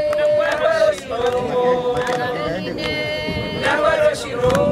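A group of women chanting together in long held, high notes whose pitch wavers and glides, with a few sharp hand claps.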